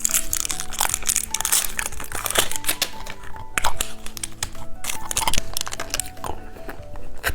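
Plastic candy packaging crinkling in repeated bursts as it is handled and opened, over light background music.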